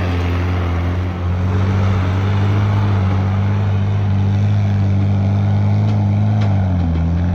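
Tractor engine running steadily at constant revs, the pitch dropping slightly near the end as the revs ease off.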